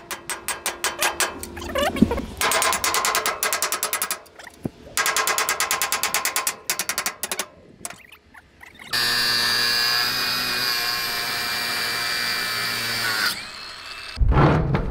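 Tools working on the steel locking hardware of a shipping container door. First come rapid runs of metallic strikes and rattling. Then, about nine seconds in, a loud, steady whining tool noise runs for about four seconds before it stops.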